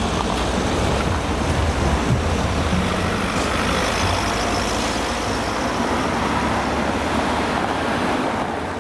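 Cars driving one after another across a railway level crossing, engines and tyres running steadily.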